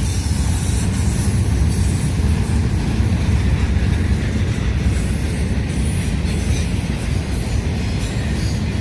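Intermodal freight train's cars rolling past on the track: a steady low rumble of wheels on rail.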